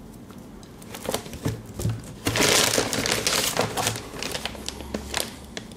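Modular power-supply cables and their connectors being handled: scattered light clicks and taps, with a spell of crinkling about two seconds in that lasts about a second and a half, like plastic packaging being handled.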